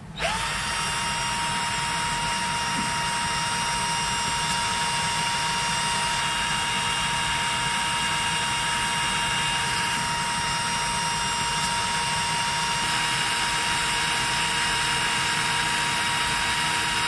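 Cordless drill used as a centrifuge, spinning a rotor that holds two microfuge tubes balanced one on each side. The motor starts at once, and the whine quickly settles into a steady high tone that holds throughout.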